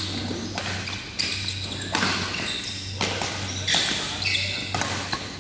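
Doubles badminton rally: a series of sharp racket hits on the shuttlecock, mixed with short squeaks of court shoes on the synthetic court mat.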